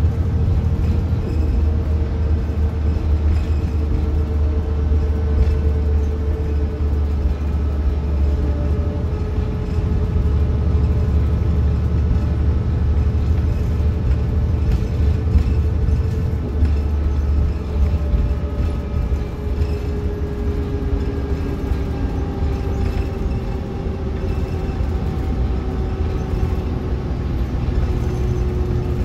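Cabin noise of a New Flyer Xcelsior XN40 natural-gas city bus under way: a steady low engine and road rumble, with a faint whine that slowly falls in pitch and sets in again about two-thirds of the way through.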